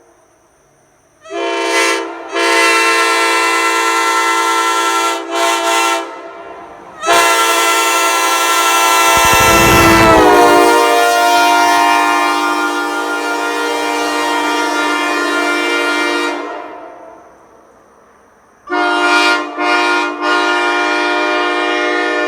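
Nathan Airchime K5LA five-chime locomotive air horn (bells 1, 2, 3A, 4A, 5) sounding its full chord in several blasts: a short toot, a blast of about four seconds broken by quick stutters, a long blast of about nine seconds that dips slightly in pitch near its middle, and a last blast near the end starting with quick stutters.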